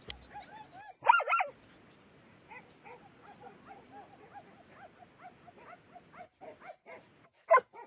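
Dogs barking: a short burst of barks about a second in, faint yelping barks through the middle, and louder barks again near the end.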